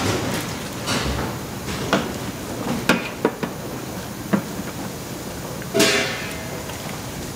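Stainless-steel kitchenware in a commercial kitchen: scattered sharp metal clanks and knocks as a long steel stirring paddle and bowl meet a large steel cooking kettle of braising pork, with a short, louder scrape about six seconds in, over a steady background hiss.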